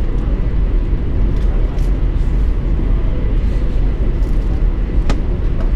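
Steady low rumble inside a high-speed train carriage running at speed, with one sharp click near the end.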